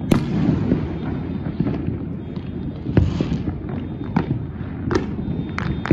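Distant fireworks going off: a series of sharp bangs about a second apart, some followed by a crackling fizz, over a steady low rumble.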